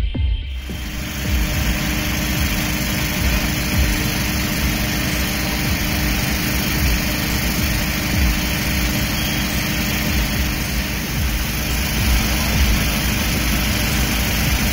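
Fire truck engine running steadily at the foot of an extended turntable ladder, with a constant hum and rumble.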